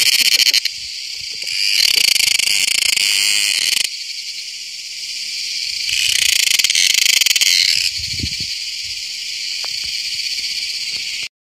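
Loud, high-pitched insect chorus, finely pulsing, swelling and easing in waves every two to four seconds, then cutting off abruptly near the end.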